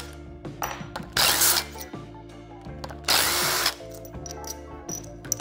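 Cordless impact driver run in two short bursts, about a second in and about three seconds in, backing out the cap screws that hold the manifold head on a pressure washer's triplex plunger pump.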